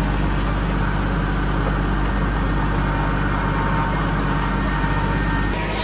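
Small farm tractor's engine running with a steady low hum as the tractor drives along; the sound drops slightly near the end.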